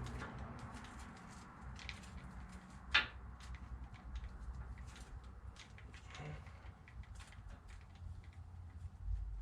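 Scattered light clicks and taps of hand tools working on a rusty brake caliper and its brake-line banjo bolt, with one sharper click about three seconds in, over a low steady rumble.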